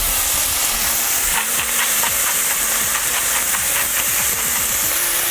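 Chopped onion, bell pepper and garlic sizzling in hot olive oil in a frying pan, a steady hiss with light crackling as they sauté.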